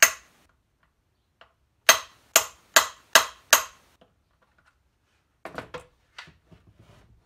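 Hammer blows on a driver set in a primary case cover screw of a BSA A70L engine, shocking the stuck screw loose: one sharp metallic strike at the start, then five in quick succession about two seconds in. Lighter metallic clicks and rattles follow near the end as the tool is handled.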